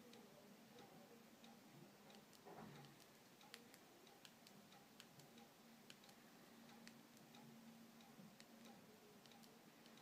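Faint, irregular clicks from the keys of a Sony Ericsson Aino U10 slider phone as the navigation key is pressed, about one or two a second, over near-silent room tone.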